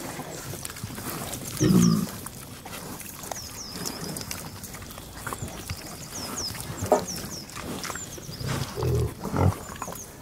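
Pigs grunting low: one loud grunt about two seconds in, then a cluster of grunts near the end, with a sharp click in between and repeated short high chirps throughout.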